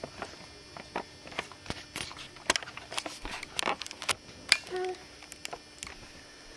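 Irregular light clicks and taps, with one brief pitched voice sound just before five seconds in.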